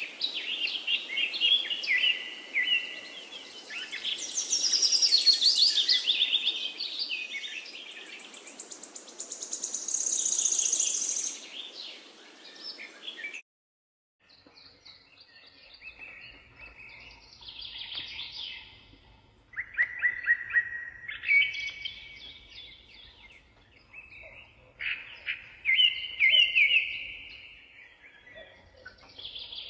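Several birds chirping and singing, short overlapping calls and trills; the sound cuts out abruptly about halfway through, then the chirping resumes after a second.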